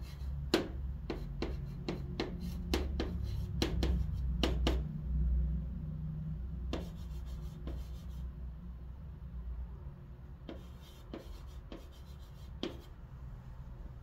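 Chalk writing on a chalkboard: irregular taps and short scratchy strokes as the letters go down, busiest in the first few seconds, then two more short runs of strokes later on. A low steady hum lies underneath.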